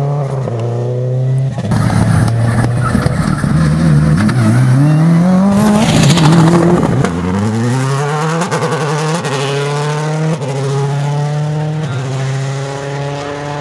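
Rally car engine accelerating hard through the gears, its pitch climbing and dropping back at each upshift. It is loudest about six seconds in, with a burst of hiss, and fades as the car pulls away.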